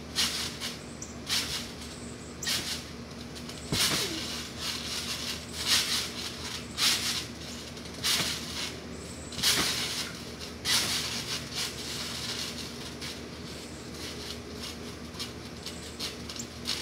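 Trampoline being jumped on: a short creaking swish with each bounce, coming roughly once a second and unevenly, over a steady low hum.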